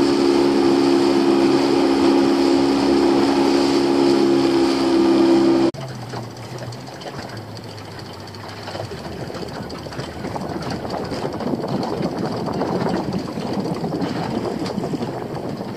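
Small fishing boat's engine running steadily at speed, stopping suddenly about six seconds in. After that, wind on the microphone and water lapping against the hull of the drifting boat.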